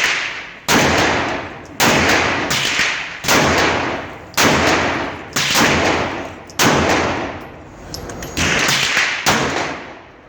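Springfield XDM 9mm pistol fired about ten times at a steady pace of roughly one shot a second. Each shot has a long echoing tail.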